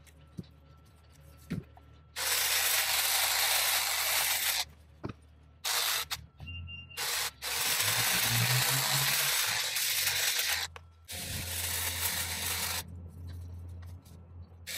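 Kress cordless hedge trimmer, powered from a backpack battery, cutting through a hedge in several bursts of two to three seconds each, with its blades running loudly and stopping between cuts. In the gaps there are a few sharp clicks.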